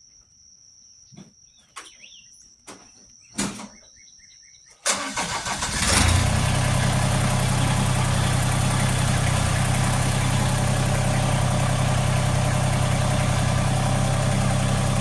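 A few light knocks over a steady high insect buzz, then about five seconds in an engine starts, revs up briefly and settles to run steadily, the engine of the machine that raises and lowers the work basket.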